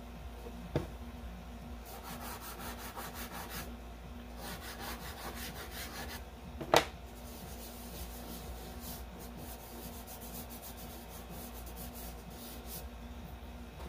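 Chalk pastel scratching across paper in quick back-and-forth strokes as a leaf is coloured in and rubbed with the fingers. Two sharp taps break in, about a second in and, louder, a little before halfway.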